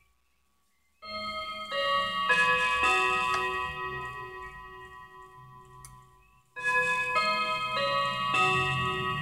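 German Linden mantel clock's chime, set off by turning the minute hand by hand, playing a melody of struck, ringing notes. The chime starts about a second in, with notes stepping and slowly fading. After a short drop-out, a fresh run of the chime melody starts abruptly about two-thirds of the way through.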